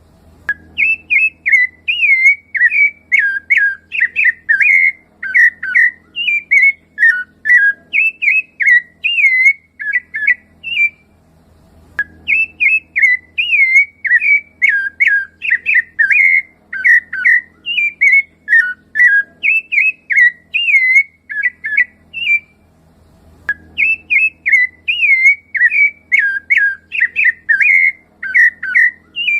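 Rufous-bellied thrush (sabiá-laranjeira) singing a fast, continuous run of clear whistled notes. The song breaks off twice for about a second, and each time it resumes with a sharp click.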